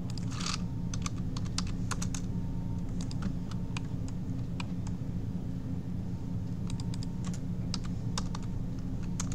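Computer keyboard typing: irregular, scattered key clicks over a steady low hum.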